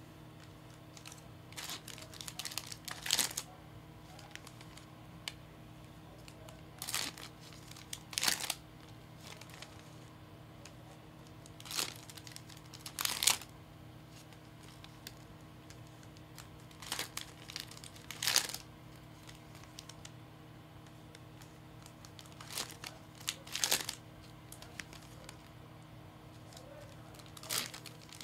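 Foil trading-card packs being torn open and crinkled by hand, one after another: a short crinkling tear about every five seconds, six times.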